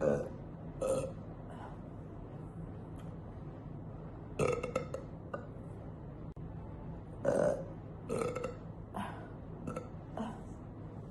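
A woman burping repeatedly: a string of short belches, the loudest about four and a half seconds in and again about seven seconds in, over a steady low hum.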